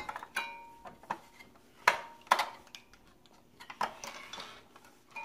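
Hard clicks and clinks of AA batteries and the plastic battery compartment of a toy crayon carver being handled during a battery swap: about seven irregular knocks, a few with a brief metallic ring.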